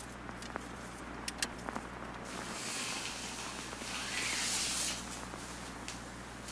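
Rustling of fabric and gear being handled and packed into a nylon backpack, with a few light taps and clicks. A louder rustle swells in the middle for two or three seconds.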